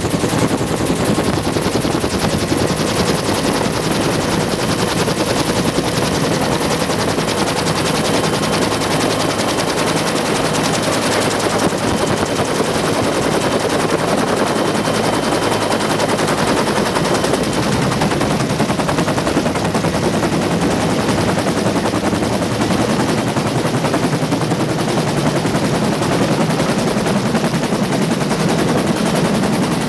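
Bell UH-1 Huey helicopter's two-bladed main rotor beating in a steady rapid chop over its turbine whine, heard from inside the open cabin as it descends to land.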